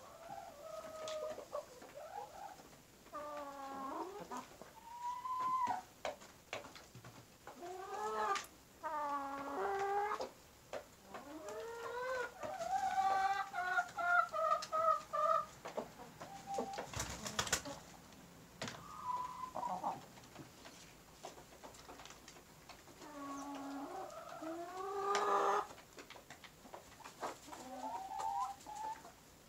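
Chickens calling in bursts of bending, squawking notes. An Ayam Cemani rooster crows once near the middle, a long call of several notes, and hens cluck around it. A sharp click sounds a little past halfway.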